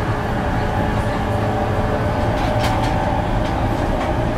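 Interior running sound of a JR East 205 series 5000-subseries motor car: wheels rumbling on the rail under a steady whine from the Toyo IGBT-VVVF inverter and traction motors. A short cluster of clicks comes a little past halfway.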